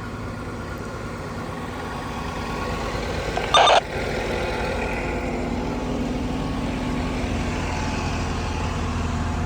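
Fire apparatus engines running steadily at the fire scene, a low drone. A short loud burst cuts in about three and a half seconds in.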